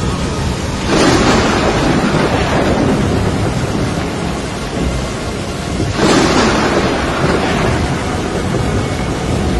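Heavy rain with two claps of thunder, about a second in and again about five seconds later, each rolling away over a couple of seconds.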